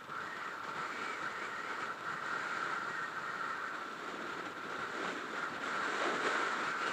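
Steady rush of wind over a helmet-mounted camera on a moving motorcycle, with the bike's engine running underneath.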